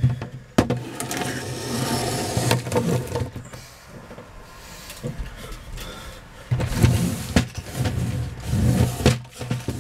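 Clear plastic storage bin full of Lego pieces handled and shifted on a wooden table: a couple of sharp knocks as it is set down, then loose plastic bricks rattling and the bin scraping, louder again near the end.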